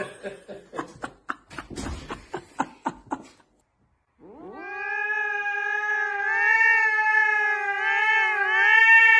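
Domestic cat yowling one long, drawn-out call that starts about four seconds in, held steady with a slight waver near the end. Before it, a quick run of light clicks and taps.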